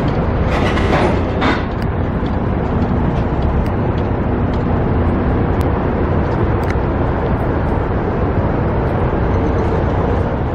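Steady low outdoor rumble, with a brief hiss about a second in.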